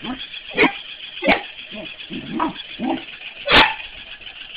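Corgi barking in short, sharp barks, three of them loud and the last the loudest, with softer yips in between.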